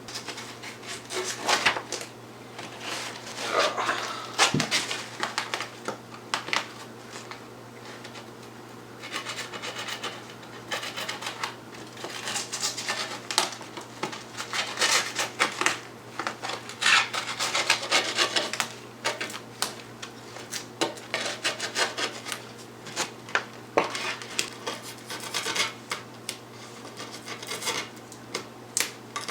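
Razor blade slicing through skateboard grip tape along the edge of the deck: irregular, gritty rasping strokes, some short and some drawn out over a second or more.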